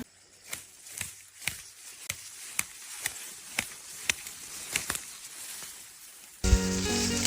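Sharp, regular chopping or cutting strikes of a blade, about two a second. Music starts abruptly near the end.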